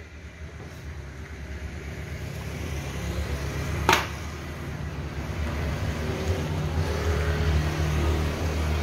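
A motor vehicle's engine running and growing steadily louder as it comes nearer. A single sharp knock about four seconds in.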